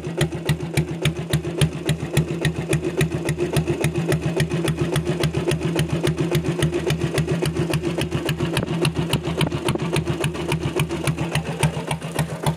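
Diesel Royal Enfield Bullet's single-cylinder diesel engine, a converted water-pump engine, idling steadily with an even beat of exhaust pulses from the silencer.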